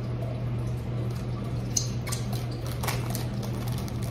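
A steady low hum with scattered crackles of a plastic candy wrapper being handled, the loudest about two and three seconds in.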